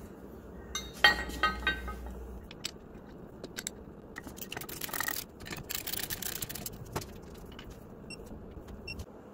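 Metal clinks and scrapes of a brake caliper carrier being fitted to the hub, with a sharp ringing metal knock about a second in. Near the end a ratchet clicks slowly as it turns the carrier bolts.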